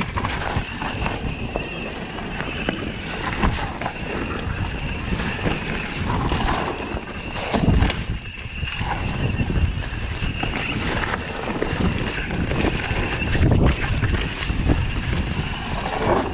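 Propain Tyee full-suspension mountain bike descending a dirt trail: a steady rush of tyre noise and wind buffeting the microphone, with frequent small knocks and rattles from the bike over bumps.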